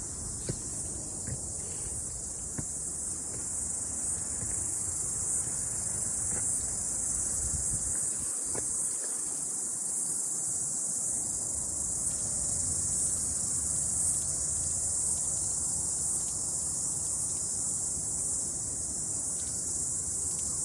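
Cicadas singing: a steady, high-pitched chorus that holds without a break.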